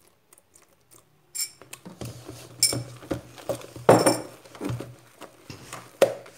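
A spoon clinking and scraping in a bowl as a glue-and-shaving-foam slime mixture is stirred while liquid is added. One ringing clink comes about a second and a half in, then repeated clinks and wet scraping follow.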